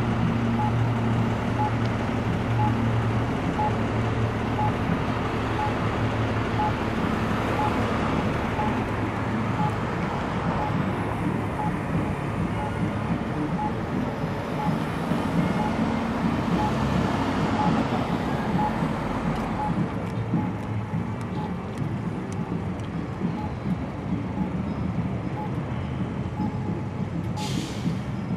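Street traffic: cars and a transit bus driving past with engine hum and tyre noise. A faint beep repeats at an even pace, and a short hiss of air comes near the end.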